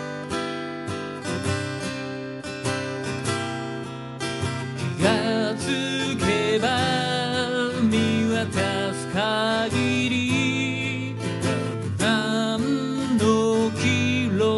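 Steel-string acoustic guitar strummed in a steady rhythm, played live through a PA. About five seconds in, a man starts singing over the guitar.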